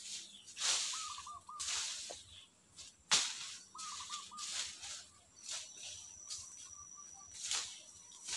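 Irregular rustling swishes and scrapes of leaf litter and brush as a man works bent over at the forest floor, with one sharp snap about three seconds in. A bird gives two short runs of about four quick chirps, and a thin steady high whistle sounds through the second half.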